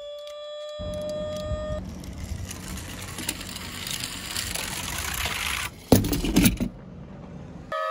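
Electronic toy siren wail that slowly rises, then cuts off about two seconds in. It gives way to the rattling, rolling noise of a toy minicar running across a surface for several seconds. About six seconds in, a short loud clatter is the loudest sound.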